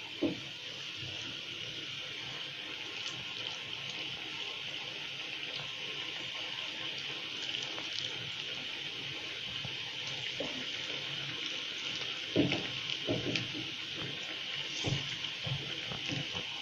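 Onion bhaji batter frying in hot oil in a steel kadhai: a steady sizzle. There are a few soft thumps near the end.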